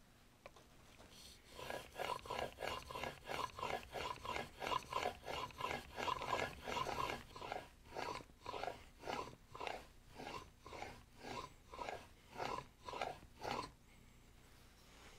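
Smoothing plane blade clamped in a honing guide, worked back and forth on a 12000-grit waterstone: a rhythmic scraping stroke about twice a second that starts about a second in and stops near the end. This is the final polishing stage of honing the bevel.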